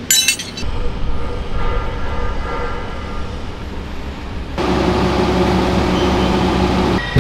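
A brief clatter of metal tools at the start, then a crawler excavator's diesel engine running. A little past halfway the engine sound abruptly steps up to a louder, steady drone.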